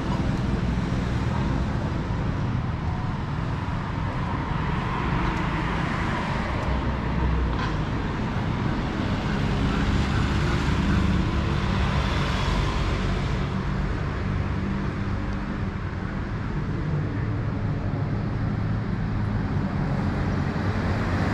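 Busy city street traffic: motor vehicle engines running close by with a steady low hum. The traffic noise swells louder for several seconds in the middle, with a single sharp click partway through.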